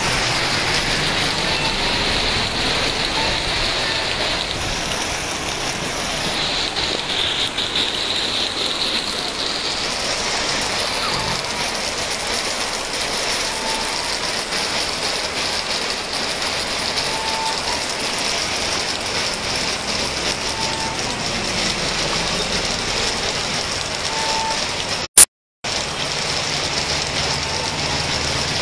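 Heavy rain falling in a steady hiss. Near the end, a single loud click followed by a half-second dropout in the sound.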